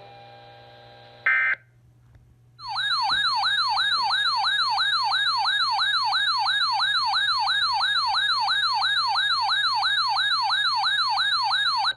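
Electronic yelp siren tone, part of an emergency alert broadcast, rising and falling rapidly about two and a half times a second. It starts nearly three seconds in and cuts off abruptly near the end. A short tone blip sounds about a second in, over a faint steady hum.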